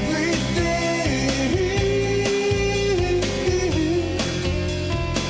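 A song with a band and a steady beat, a voice singing a long held note over it.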